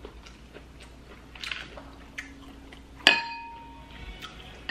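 Tableware clinking during a meal: a few light clicks and taps, then one sharp clink with a short ring about three seconds in, as a dish is struck.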